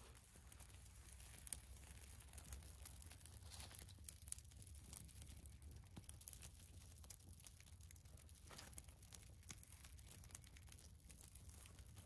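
Faint scraping, rustling and light knocks of rigid foam insulation boards being handled and stacked, over a low steady rumble.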